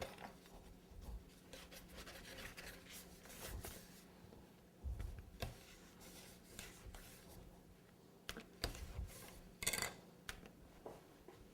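Faint handling noises: scattered soft taps and rubbing as hands work small fondant pieces and tools on a work surface, with a faint steady low hum underneath.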